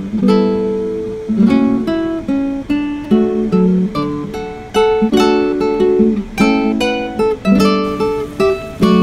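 Background music: an acoustic guitar playing plucked notes and strummed chords.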